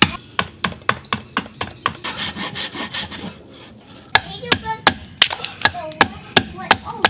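A small hatchet chopping into a pine billet, about three quick strikes a second, then a second or so of rubbing and scraping on the wood. After a short lull there are more quick chopping strikes with a large knife blade into the pine, some with a brief ring.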